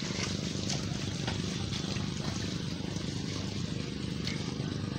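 A small engine running steadily at an even idle-like hum, with no change in speed.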